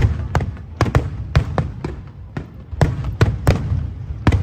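Fireworks shells bursting in quick succession: about a dozen sharp bangs, two or three a second at uneven spacing, each followed by a deep low boom.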